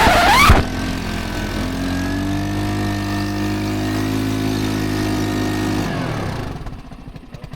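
ATV engine running at a steady speed, its pitch edging up slightly, then dying away near the end. A louder rising sound cuts off about half a second in.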